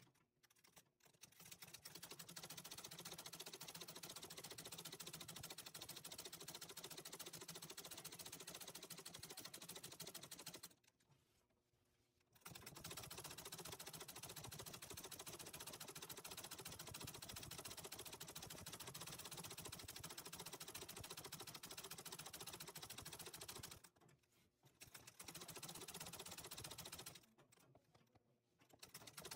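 Antique treadle sewing machine stitching rapidly for free-motion embroidery, running in long stretches and stopping for a second or two about a third of the way in and twice near the end.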